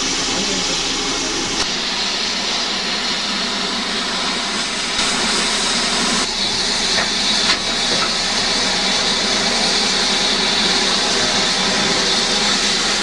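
Steam locomotive hissing steam steadily, a loud even hiss that grows brighter and a little stronger about halfway through.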